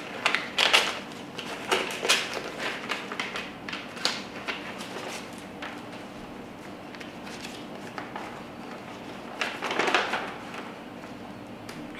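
Paper rustling and crinkling as a bid envelope is handled, opened, and the folded papers inside are pulled out and unfolded, in irregular bursts that are strongest at the start and again near the end.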